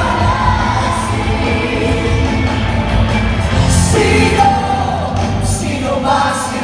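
Live pop music from a stage performance, with singing over a heavy bass, heard loud in a large hall.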